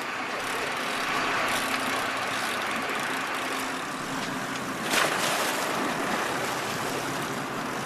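Sportfishing boat's engine running steadily, with water and wind noise around it; a brief louder rush of noise about five seconds in.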